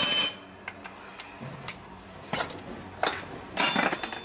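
A spray hiss that cuts off suddenly just after the start, then a run of light metallic clinks and knocks, about eight in all and loudest near the end, as tools and metal parts are handled at a car's front wheel hub and driveshaft.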